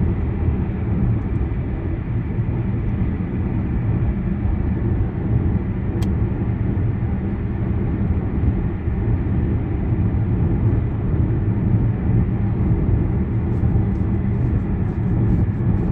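A car's engine and tires running steadily, a low rumble with a constant hum as the car is driven along the road. A single short click about six seconds in.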